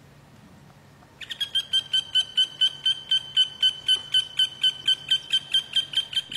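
A rapid run of evenly spaced, high chirps, about four a second, starting about a second in. It sounds like a bird call.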